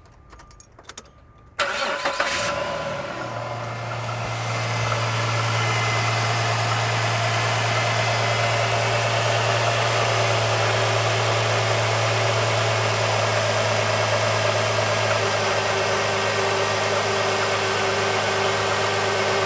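2005 Jeep Liberty's 3.7-litre V6 cranking and catching about a second and a half in, then idling steadily, its idle settling a little lower later on. The grindy, scrapey noise of the old alternator pulley is gone; a very slight rattle is left, which the owner puts down to the valve train.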